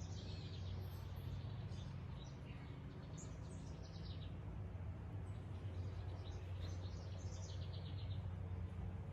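Songbirds singing outdoors in short, trilled phrases, one near the start, another about three seconds in and another about seven seconds in, over a steady low hum.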